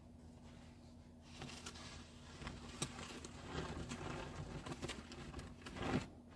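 Snow shovel blade scraping along snowy pavement as snow is pushed, starting about a second in, rough and uneven with small clicks, and ending in a louder scrape near the end.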